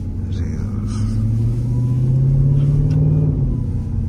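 Jeep Grand Cherokee Trackhawk's supercharged 6.2-litre V8 heard from inside the cabin, its pitch rising steadily for about three seconds under light acceleration, then dropping away as the throttle eases.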